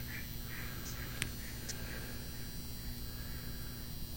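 Faint steady electrical hum with a few small, sharp clicks, the clearest about a second in.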